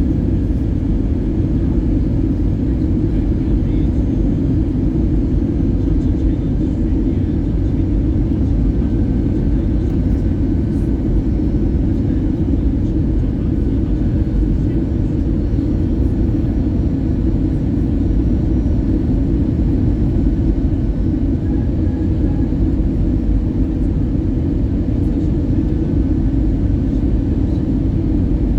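Steady low drone of engines and rushing air inside the cabin of an Airbus A320 airliner in flight, even in level throughout.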